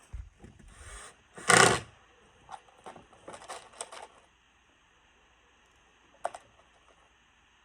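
Hand work on the door's timber framing: a few low thumps, a loud half-second scraping rush about a second and a half in, then a scatter of quick clicks and taps, and one more sharp click near the end.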